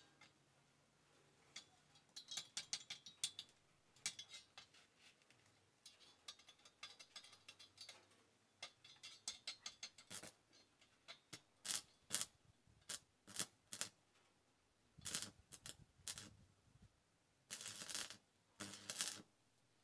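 Hand tools and scrap steel pieces being handled: scattered metallic clicks and quick rattling ticks, then a run of sharper knocks and clinks in the second half.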